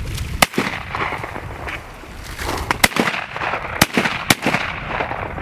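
Shotgun shots: one sharp report about half a second in, then three more in quick succession from about three to four and a half seconds in.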